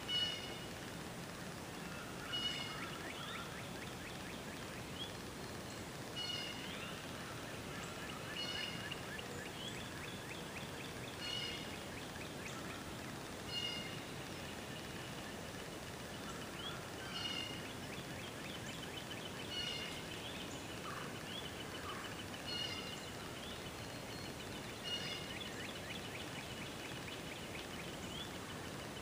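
A bird calling over and over, a short high call about every two to three seconds, each trailed by a rapid trill, over a steady background hiss.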